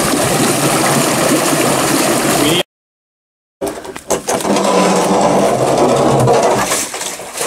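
Pond water gushing in a steady torrent through a concrete culvert after the sandbags blocking it were pulled out. The sound breaks off for about a second, then comes back as rougher splashing and sloshing with a few knocks.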